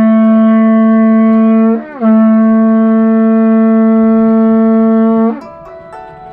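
Horagai, a Japanese conch-shell trumpet, blown in loud, long, steady notes: a held note breaks off with a quick drop in pitch a little under two seconds in, then a second held note of about three seconds follows and stops about a second before the end.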